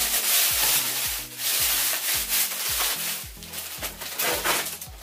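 Packing material and chair parts rustling and rubbing as they are pulled from a cardboard box, in several long stretches, over background music with a steady beat.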